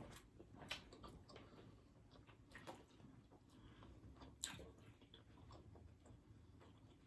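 Quiet chewing of a crusty grinder sandwich: scattered soft mouth clicks and crunches, the sharpest one about four and a half seconds in.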